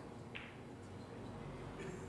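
Faint clicks of billiard balls touching as they are pressed together in a rack, with one sharper high click about a third of a second in, over a quiet room hum.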